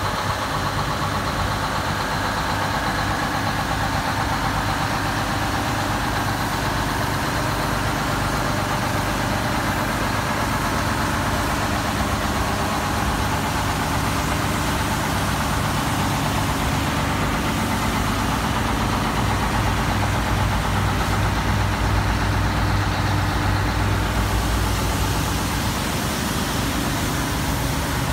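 1972 Brockway heavy-haul truck tractor's engine idling steadily.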